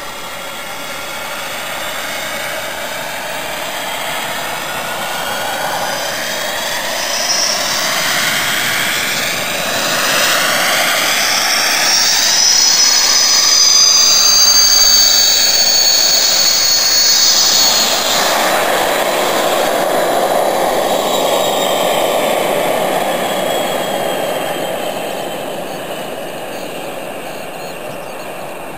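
Go-kart powered by twin model jet engines (small gas turbines) making a fast pass: a high turbine whine with a rushing noise grows louder as it approaches. Just past the middle the whine drops in pitch as the kart goes by, then the sound fades as it moves away.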